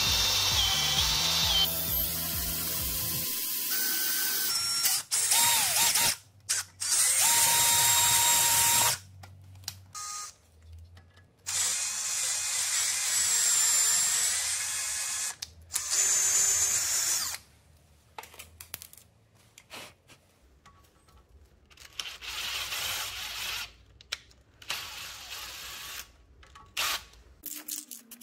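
Cordless rotary power tool with a spinning burr grinding metal off a brake caliper mounting bracket, running in several bursts of a few seconds each with a high whine, the later bursts quieter.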